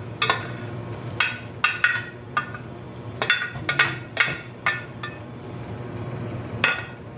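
A spoon knocking and scraping against a glass dish as chopped vegetables are pushed out of it into a pot of soup. About ten irregular clinks and knocks.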